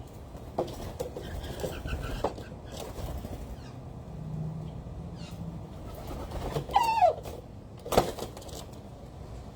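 Birds calling at feeding time, mixed with scattered clicks. About seven seconds in comes one louder call that wavers and then drops in pitch, followed by a sharp knock.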